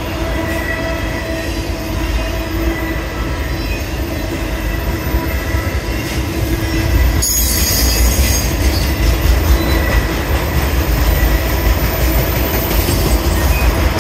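CSX freight train's autorack cars rolling past with a heavy low rumble and steady wheel squeal as the train takes the crossover from track one to track two. A higher, hissing squeal joins in about seven seconds in.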